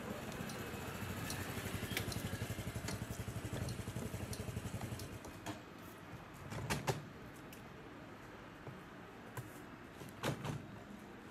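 A motor vehicle's engine running with a fast low throb, fading out about five seconds in, followed by a few short clicks and knocks.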